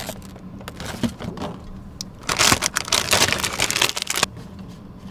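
Plastic food packaging crinkling and rustling as ingredient packets are handled and pulled from a meal-kit tray, with light scattered clicks at first and the loudest crinkling for about two seconds in the middle.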